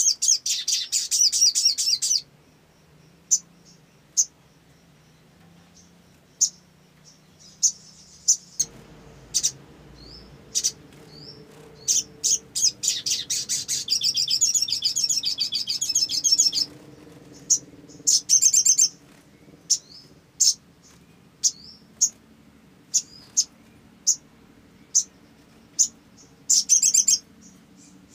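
Caged male sunbird singing: rapid, high-pitched chattering trills lasting from under a second to about four seconds, with single sharp chip notes in between. The longest trill comes about halfway through.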